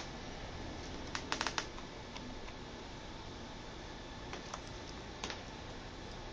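A few light clicks and taps, with a quick cluster of about four about a second and a half in: small screws and a screwdriver handled against a laptop's plastic screen bezel during reassembly, over a low steady hiss.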